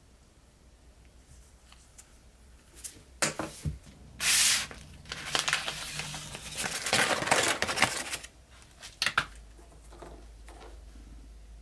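A sheet of paper crinkling and rustling as it is handled and lifted away, dense for a few seconds in the middle, with one loud rush. A few light knocks come just before it and again near the end.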